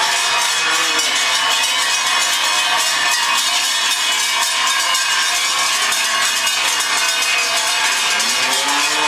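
Many cowbells clanging continuously and unevenly as a herd of cows walks along.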